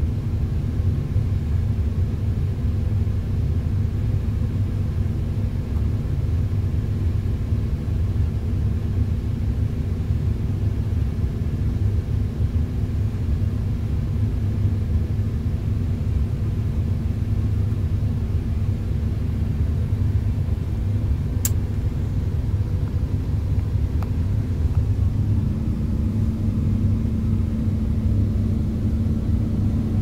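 Concrete mixer truck's diesel engine running steadily, heard from inside the cab as a low, even rumble. A steady hum comes up slightly near the end, and there is a single faint click about two-thirds of the way through.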